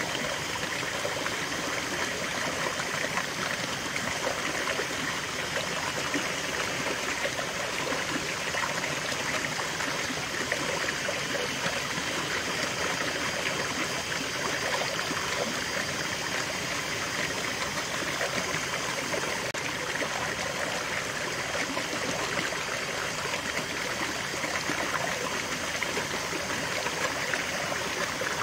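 A shallow rocky stream running steadily, water spilling over a small cascade between boulders into a clear pool: an even, unbroken splashing and trickling.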